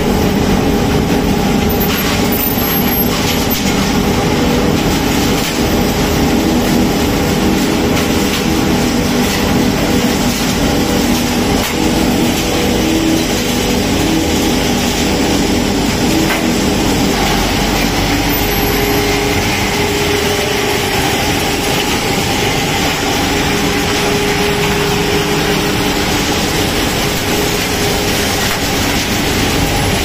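Scrap radiator shredding and hammer-crushing separation line running: a twin-shaft shredder, hammer crusher and conveyor. The noise is loud and steady, with a few held hums. The deepest rumble grows stronger about eighteen seconds in.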